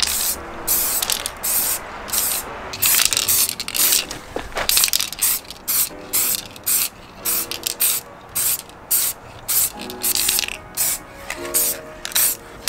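Aerosol spray-primer can hissing in many short bursts, each starting and stopping sharply, as a primer coat is applied.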